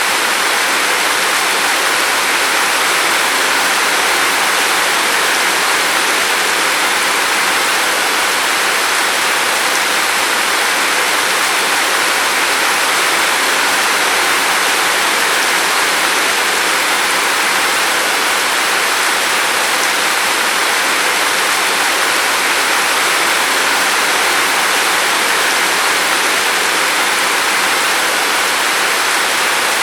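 Steady rain falling, a dense, even hiss with no single drops or gusts standing out.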